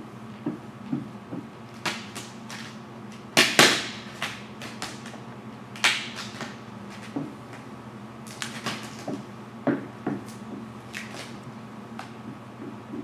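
Vinyl wrap film being worked onto a car hood: irregular crinkling and rustling as the loose sheet is lifted and stretched, and scraping as a hard card squeegees it down, loudest about three and a half seconds in and again around six seconds in. A low steady hum runs underneath.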